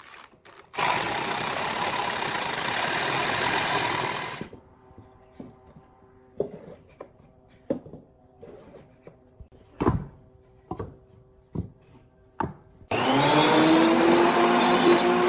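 An electric power tool working wood runs for about four seconds and stops. Then come a dozen scattered knocks and taps on wood over a faint hum. Near the end the tool starts again, its whine rising as the motor spins up.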